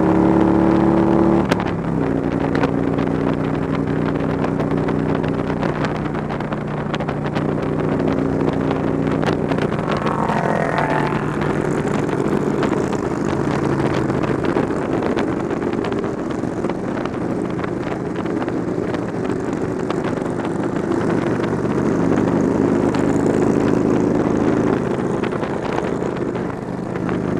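Touring motorcycle's engine running at freeway speed with wind rush over the microphone; the engine note drops about a second and a half in and then shifts up and down with speed. A brief rising whine cuts across about ten seconds in.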